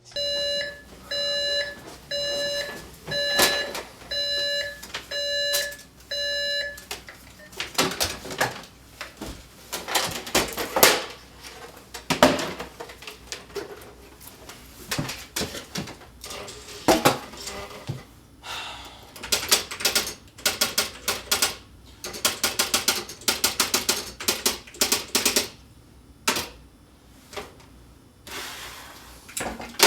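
An electronic alarm beeps about eight times, a little faster than once a second, and stops about seven seconds in. Then typewriter keys clack in quick irregular runs with short pauses.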